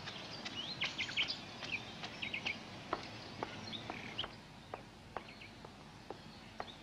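Small birds chirping in quick, short calls over a faint steady hiss, with sharp footsteps now and then.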